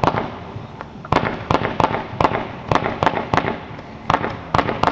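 Fireworks going off: a quick, irregular string of sharp bangs, about two or three a second.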